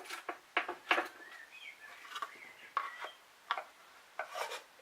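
A series of about ten sharp knocks and clicks, hard objects being handled and set down against one another.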